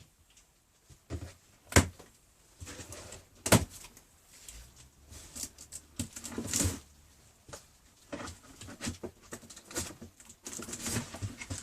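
Cardboard box being opened and handled: two sharp knocks early on, then irregular bursts of rustling and scraping of cardboard and packing.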